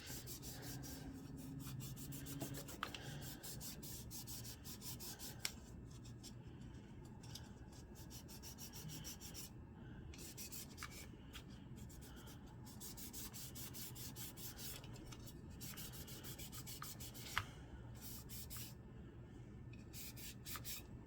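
Oiled cleaning pad rubbed firmly back and forth over a pistol's rusty steel to work the oil in and lift spot rust: a faint, quick scratchy rubbing, with a light click about five seconds in and another later on.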